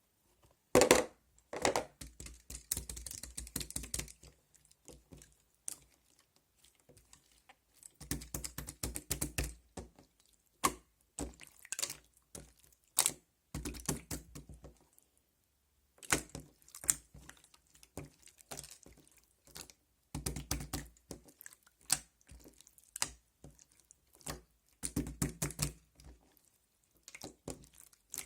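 Slime being pressed and worked by hand, giving clusters of quick clicks in bursts of a few seconds, with short pauses between them.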